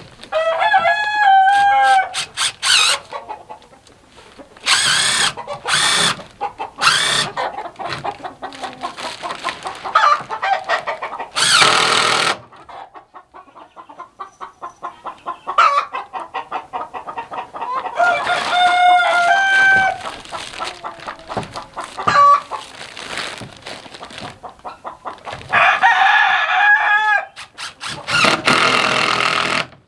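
Backyard chickens clucking, with a rooster crowing three times: near the start, about two-thirds of the way through and near the end. Several loud stretches of rushing noise come in between.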